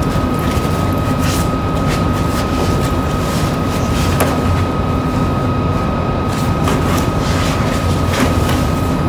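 Steady rumbling room noise with a constant thin whine running under it. A few light clicks and knocks come through as the stacked plates of a table-tennis training system are handled in and out of their cardboard box.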